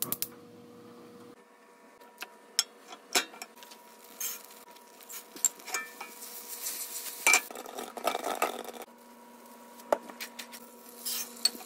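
Kitchen cooking sounds from a stainless steel frying pan on a gas stove: scattered sharp clicks and metallic clinks, with a stretch of sizzling oil and butter about six to nine seconds in.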